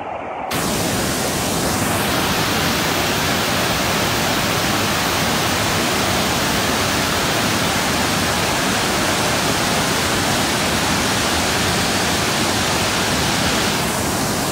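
A river in flood, its muddy torrent pouring over rapids after heavy rain upstream: a loud, steady rushing roar of water that starts abruptly about half a second in.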